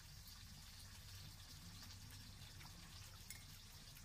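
Near silence: a faint steady low hum, with a few faint light clicks of a spoon and chopsticks against bowls during a meal.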